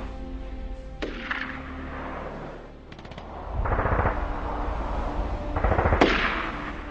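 Battle sound effects of gunfire: a sharp shot about a second in, several short bursts of rapid machine-gun fire, and a loud blast near the end, over held background music.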